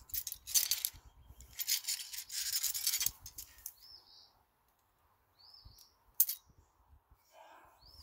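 Two spells of hissy, scraping noise in the first three seconds, then a bird chirping briefly three times and a single sharp click a little after the middle.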